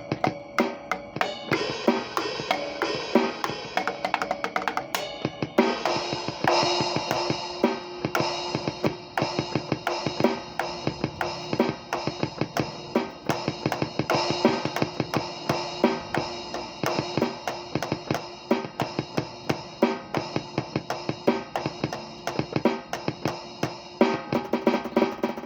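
Drum kit played freely, a steady run of quick strokes with no pause, and the pattern changes about five and a half seconds in.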